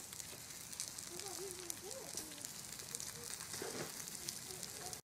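Bacon sizzling in a cast-iron skillet over a wood fire, a steady hiss full of fine crackles. It cuts off suddenly near the end.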